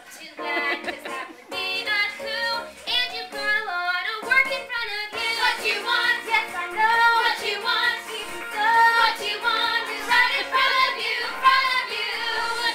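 Young female voices singing a musical-theatre show tune over instrumental accompaniment.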